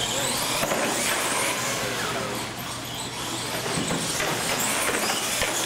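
Radio-controlled monster trucks driving on a concrete floor, their electric motors whining and rising and falling in pitch as they speed up and slow down, with tyre noise on the concrete.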